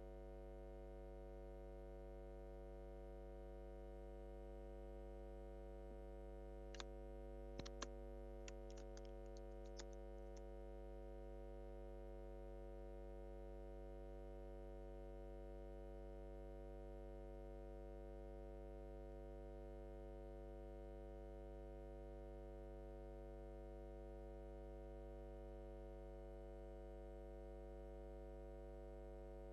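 Faint steady electrical hum with a buzz of evenly spaced overtones, and a few faint clicks about seven to ten seconds in.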